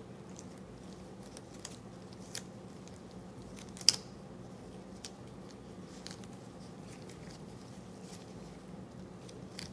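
Soft ticks and rustles of gloved hands stretching and winding rubber bands around a bunched handkerchief to tie it for dyeing, with one sharper click about four seconds in.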